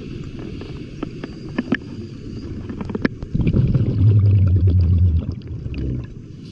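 Underwater scuba sound: a diver's exhaled breath bubbling out of the regulator, a loud low rumbling burble from about three seconds in that lasts a couple of seconds, with scattered sharp clicks before it.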